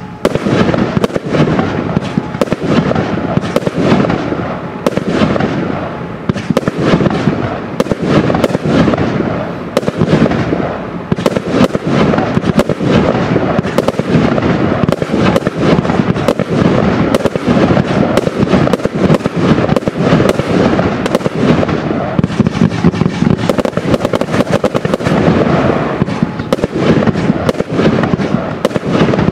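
Absolute Fireworks Kraken 109-shot barrage cake firing continuously: a dense, rapid stream of tube launches and aerial bursts with no pause.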